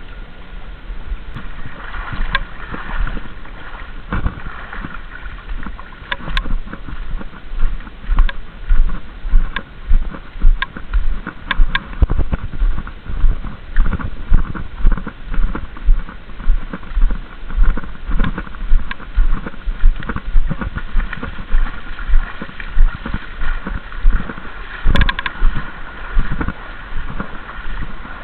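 Legs wading through shallow river water, sloshing and splashing in a steady walking rhythm of about one and a half steps a second that settles in about a third of the way through, over a faint steady high hum.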